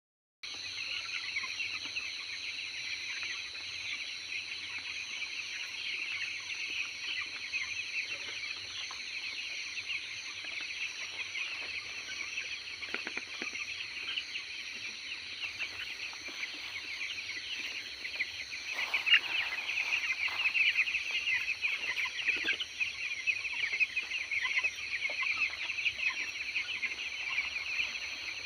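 A large flock of chickens calling continuously, many overlapping short calls, growing louder a little past halfway. A steady high-pitched whine runs underneath.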